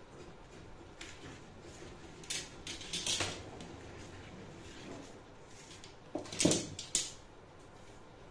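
Drafting tools handled on a cutting table while a coat pattern is being marked out: a few short scrapes about three seconds in, then a louder knock with more scrapes about six and a half seconds in.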